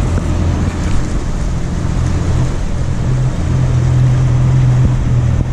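Boat motor running steadily under wind and water noise, its low hum growing a little stronger about halfway through.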